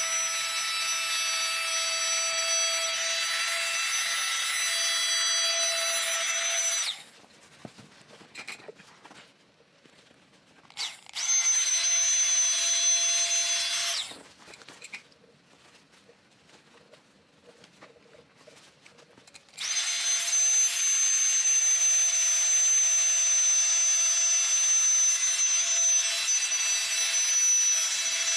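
Rechargeable portable mini air pump running with a steady high-pitched whine as it inflates an inflatable airplane seat gap filler. It stops after about seven seconds, runs again for about three seconds, pauses, then starts up again about twenty seconds in and keeps running.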